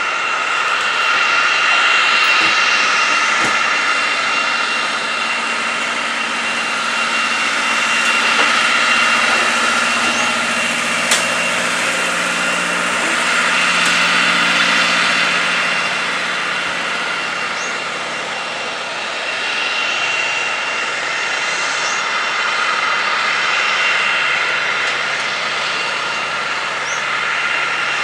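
Helibrás AS350 B3 Esquilo helicopter approaching low to land: a steady high turbine whine over the rush of the main rotor, swelling and easing gently as it comes in.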